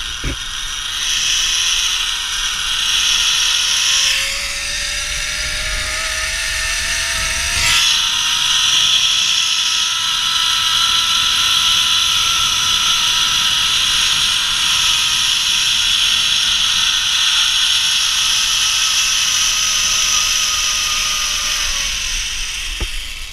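Zipline trolley pulleys running along the steel cable with a loud whirring whine that rises in pitch as it picks up speed, holds steady, then drops away near the end as the rider slows.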